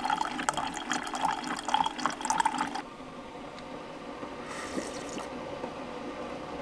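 Single-serve pod coffee maker pouring a stream of coffee into a ceramic mug, splashing and gurgling. It cuts off abruptly about three seconds in, leaving a quieter stretch with a brief sip from the mug.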